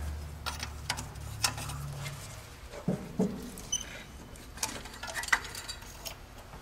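Irregular light clicks, scrapes and rattles of a carburetor's hoses, linkage and fittings being worked loose by hand on a Ford straight-six, with a couple of dull knocks about three seconds in. A low hum fades out about two seconds in.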